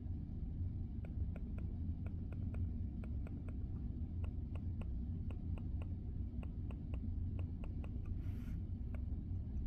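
Silent-click buttons of a Logitech Pebble Mouse 2 M350s being pressed over and over: soft, faint clicks at about three a second, starting about a second in, over a steady low hum.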